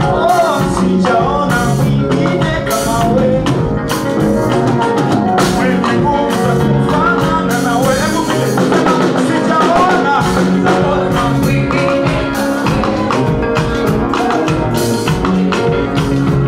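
Praise band music with singing, over a drum kit keeping a steady beat.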